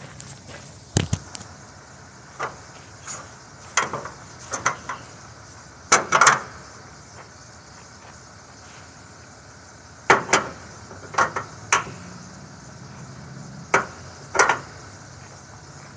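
Cargo strap hardware clicking and clanking against a flatbed trailer's steel side rail as the straps over wire-rod coils are secured: about a dozen sharp knocks at uneven intervals, some single and some in quick pairs.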